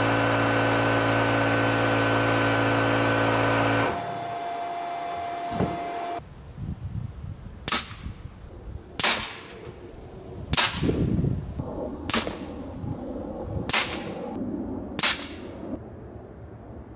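A steady machine drone for the first four seconds, then a .25-calibre Ataman M2 Ergonomic PCP air rifle firing six sharp shots, about a second and a half apart.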